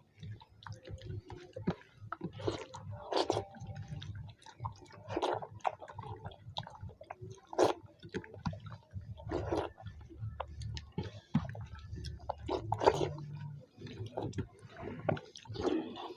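People eating vegetable khichdi fast, with wet chewing and irregular mouth smacks and clicks.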